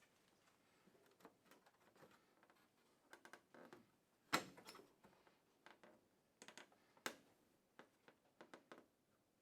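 Faint scattered clicks and taps of hand work on the van's plastic headlight trim with a Phillips screwdriver, with a sharper knock about four seconds in and another about seven seconds in.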